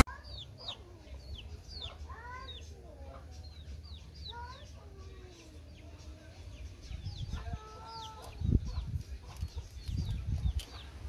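Chickens clucking in a yard, with small birds chirping over them and one drawn-out call about seven seconds in. Low thumps and rumble of handling or wind come in during the last few seconds.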